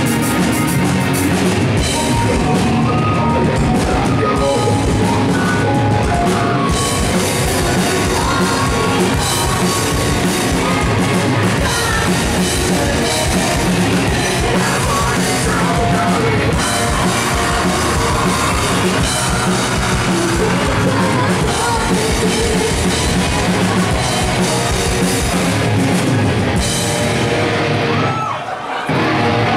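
Post-hardcore band playing live and loud: electric guitars, a pounding drum kit and a vocalist singing and yelling into the microphone. Near the end the music briefly thins out for about a second before the band comes back in.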